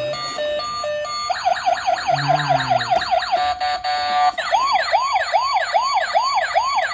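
Toy police car's electronic siren cycling through patterns. It starts as a stepped two-tone hi-lo, changes about a second in to fast rising-and-falling yelps with a short steady beeping stretch, then ends on quick repeating whoops.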